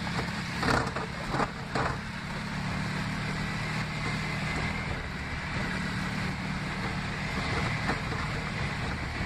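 A steady engine hum, with a few short knocks in the first two seconds.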